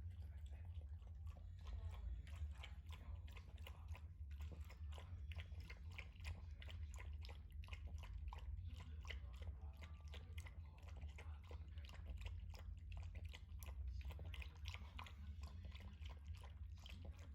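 Cavalier King Charles Spaniel eating, a run of small chewing and crunching clicks, over a low steady hum.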